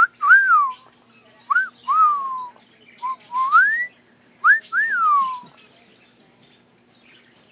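A series of clear whistled notes in four short phrases. Quick rising chirps are followed by longer glides that rise and then fall away, with one long upward sweep in the middle, and the phrases stop a little past halfway.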